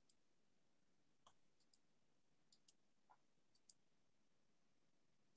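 Near silence with about nine faint, short clicks scattered through it, some in close pairs, such as computer mouse clicks.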